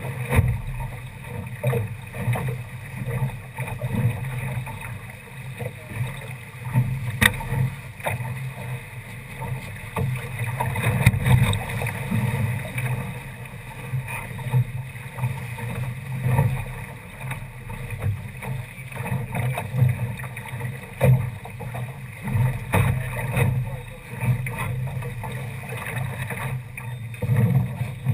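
Water rushing along and slapping irregularly against the hull of a Mercury-class sailboat under sail, with a continuous low rumble of water and wind at the deck-level microphone.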